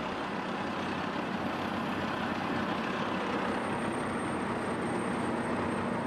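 Tracked asphalt road paver (Vögele Super series) working, a continuous even machinery noise with a faint high whine coming in about halfway.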